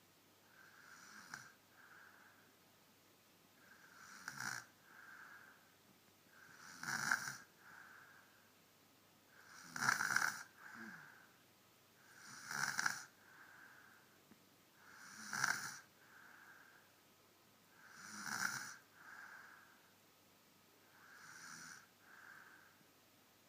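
A small child snoring in sleep, with a snore about every three seconds. Each snore is a louder breath followed by a softer one, and they are loudest around the middle.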